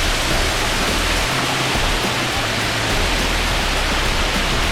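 Waterfall cascading close by: a steady rush of falling water.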